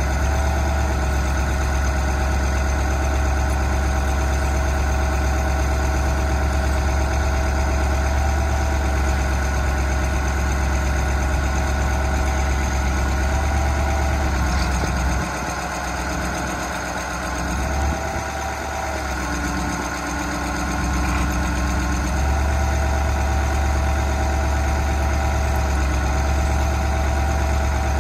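Ford 8000 boom truck's engine idling steadily. About halfway through, the low rumble eases for several seconds and a steady hum comes in briefly, then the even idle returns.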